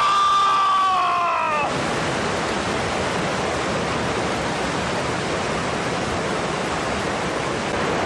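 A man's long, loud yell lasting under two seconds and dropping in pitch as it ends, over the steady rushing of a mountain stream or waterfall that carries on alone for the rest of the time.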